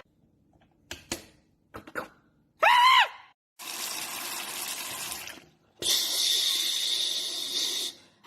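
A short sound that rises and falls in pitch, then two stretches of steady rushing hiss like a running water tap. The second hiss is louder and has a high whistle running through it: a tap sound and a person copying it with their mouth.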